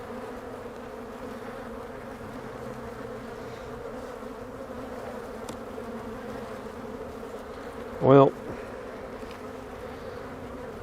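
Honey bees buzzing steadily around an open hive, a dense hum of many bees in flight.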